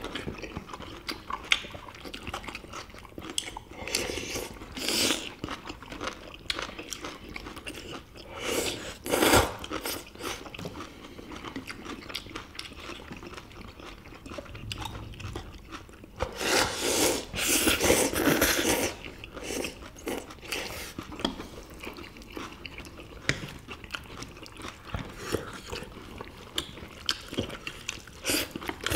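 Several people slurping jjajangmyeon and jjamppong noodles and chewing, in irregular bursts; the loudest, longest run of slurping comes a little past the middle.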